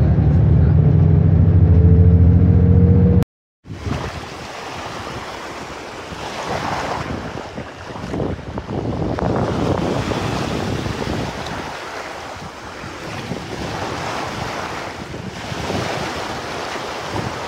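A vehicle's engine hums from inside the cabin. About three seconds in, an abrupt cut gives way to small waves washing in over a sandy shore in repeated surges, with wind on the microphone.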